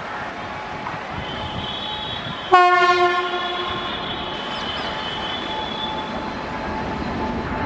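An empty passenger rake hauled by a WAP-7 electric locomotive rolls by with a steady rumble, its wheels squealing high and thin for several seconds. About two and a half seconds in, the locomotive gives one short, loud horn blast that rings on and fades over about a second.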